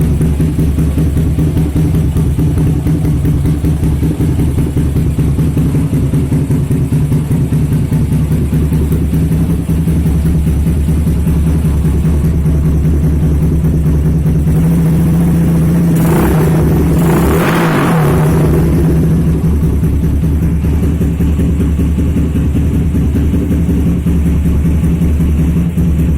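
Honda GL motorcycle's single-cylinder four-stroke engine running through a Kawahara racing exhaust, idling steadily, with a brief rev about sixteen seconds in.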